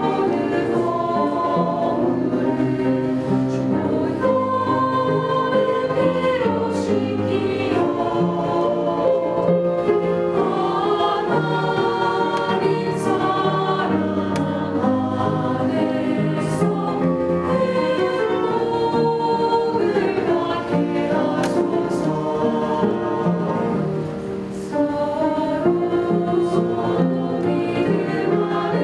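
Church choir singing a hymn, several voices together holding and moving between sustained notes.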